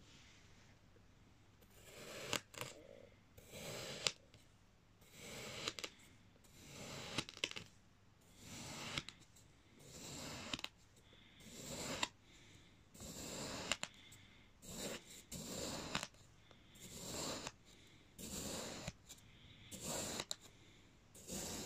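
Kitchen knife slicing down through a mound of kinetic sand, about one cut a second: each a short gritty swish, often ending in a sharp tick as the blade meets the surface below.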